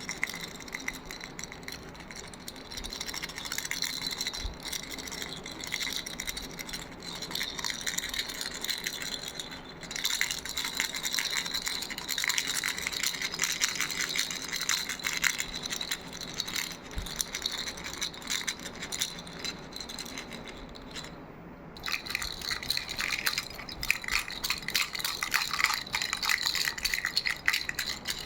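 Toy baby rattle shaken continuously, a dense, rapid clatter of small beads or pellets. It breaks off briefly about three-quarters of the way through, then resumes louder and busier.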